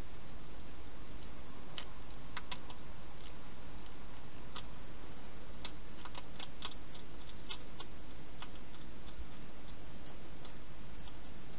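A hedgehog eating from a bowl inside a plastic feeding station: sparse sharp clicks of crunching food, coming in a busy run in the middle, over a steady hiss.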